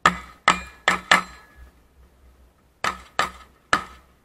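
Shotgun fired in rapid strings: four shots within about a second, a pause, then three more and another right at the end. Each sharp report trails a short metallic ring.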